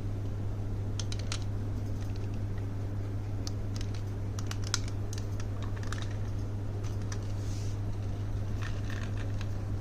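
Marbles clicking and clacking on a HABA wooden marble run, in small irregular clusters of sharp clicks, over a steady low hum.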